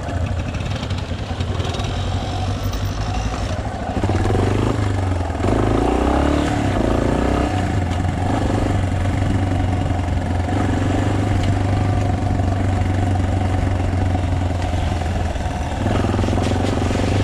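Single-cylinder trail motorcycle running along, with rushing noise over the engine. The engine gets louder about four seconds in, its pitch shifting over the next few seconds before settling into a steady run.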